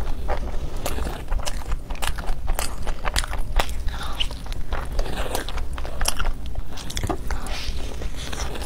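A cheese-topped pizza slice bitten and chewed close to the microphone, a dense, irregular run of short clicks and mouth noises.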